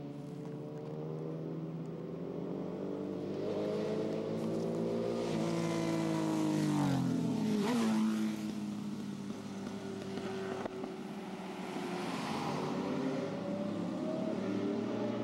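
A motor vehicle's engine approaches and passes close by. Its pitch climbs as it nears and drops sharply as it goes past, about seven to eight seconds in, the loudest moment. The engine is then still heard, lower, revving up again about twelve seconds in.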